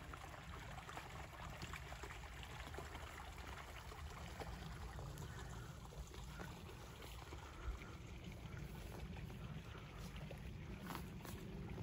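Faint rustling of footsteps through dry marsh grass and reeds, many small scattered crackles over a low steady rumble, with one slightly louder crack about three-quarters of the way in.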